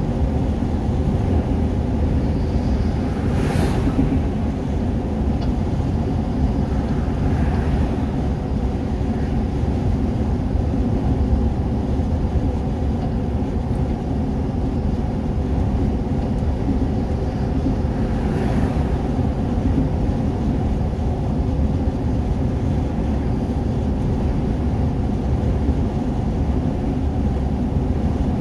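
Steady drone of engine and tyre noise inside a vehicle's cabin while cruising at motorway speed, with two brief faint hisses, one about four seconds in and one past the middle.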